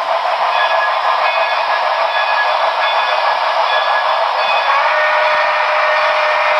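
Model train running, a steady even hiss-like rumble with faint thin high tones that come and go.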